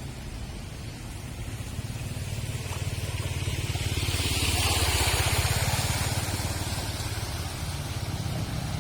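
Street traffic on a rain-wet road: a steady low rumble, with one vehicle passing about four to six seconds in, its tyres hissing on the wet surface.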